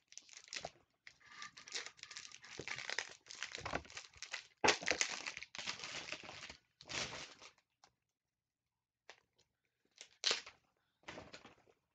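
Clear plastic wrapper being torn and crumpled off a hardcover journal: dense crinkling and tearing for about seven seconds, then a few short rustles near the end as the book is handled.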